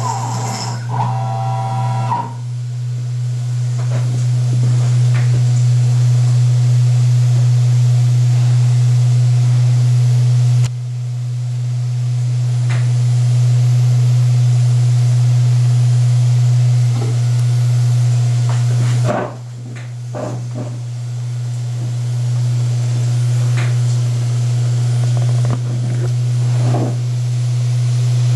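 Air-cooled 300 W spindle of a desktop CNC milling machine running at a steady speed while milling a small metal stamp: a loud steady low hum with a few faint ticks. The level jumps abruptly about eleven, nineteen and twenty-five seconds in.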